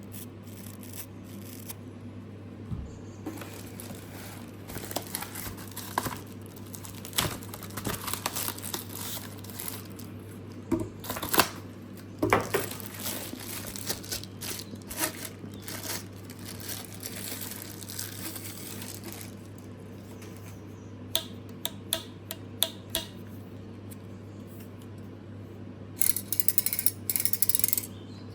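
Packaging and plastic parts being handled during an unboxing: crinkling, rustling and scattered knocks over a steady low hum, with a quick run of rapid clicks near the end.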